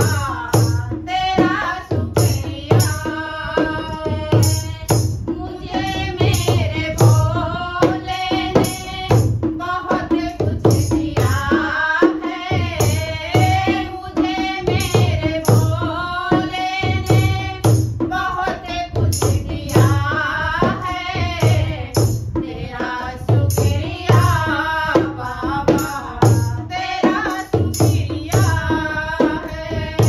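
Two women singing a Hindi devotional bhajan to a dholak drum beaten in a steady rhythm, with the jingling of a handheld plastic kartal clapper.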